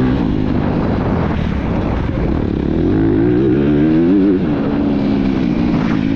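Motocross bike engine running hard under the rider, the pitch rising and falling with the throttle; it climbs for a couple of seconds and drops sharply about four seconds in.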